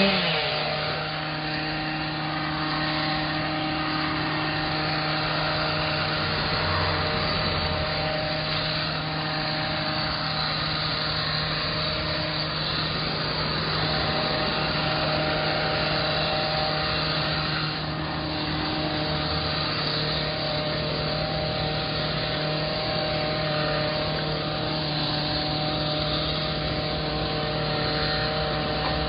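Small gasoline engine of a handheld landscaping power tool running steadily at high speed. Its pitch shifts slightly now and then.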